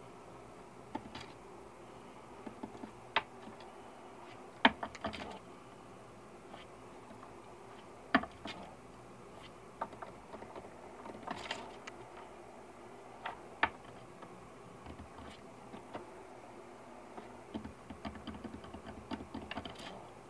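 Irregular light clicks and taps from a pet gray squirrel moving about on a wooden cage shelf, with a few sharper clicks standing out and a busier patch of tapping near the end.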